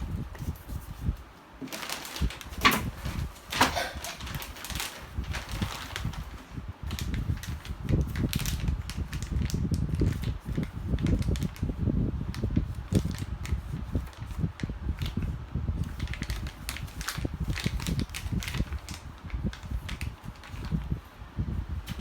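Handling noises: irregular clicks, knocks and rustling, with a low rumble in the middle.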